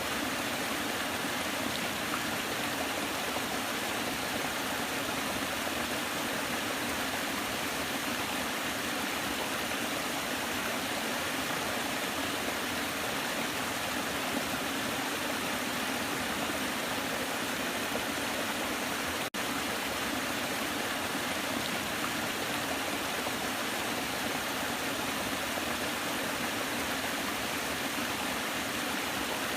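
Waterfall: water falling and rushing in a steady, even roar, with a split-second dropout about two-thirds of the way through.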